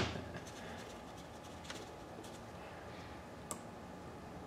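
A few faint, scattered small clicks of loose steel steering-head bearing balls being pressed into a greased race on a 1978 Suzuki GS550 triple tree, over low room tone.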